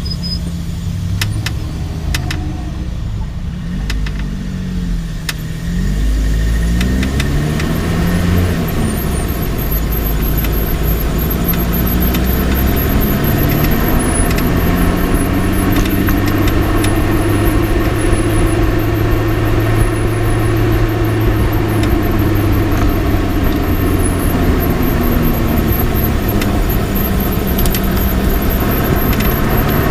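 Lotus Elise driving, heard from its front left suspension: engine note rising and falling with the revs over steady road and tyre rumble, louder from about six seconds in. A few sharp clicks come through, the kind of clicking the owner is trying to trace in that corner of the suspension.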